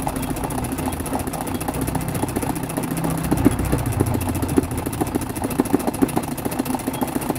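Treadle-driven straight-stitch sewing machine running steadily, its needle stitching machine embroidery through hooped cloth with a rapid, even clatter of stitches.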